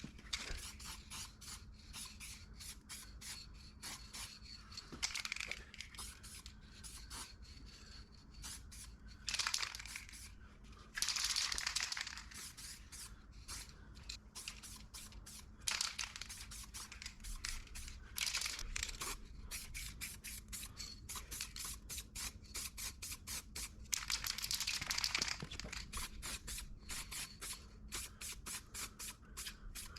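Masking tape crackling as it is pulled off the roll and torn, with several hissing bursts of aerosol spray paint lasting a second or two each, the longest a little past the middle.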